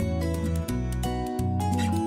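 Background instrumental music: plucked acoustic guitar over a steady bass line.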